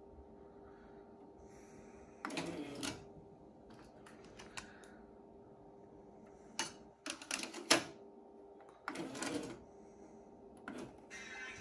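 Akai GX-9 cassette deck being handled and operated: several groups of sharp mechanical clicks and clunks from its controls and tape transport, the loudest about two thirds of the way in. A faint steady hum runs underneath.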